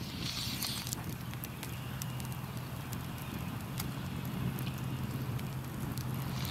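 Wood campfire crackling with scattered sharp pops over a low steady rumble, and a short hiss in the first second.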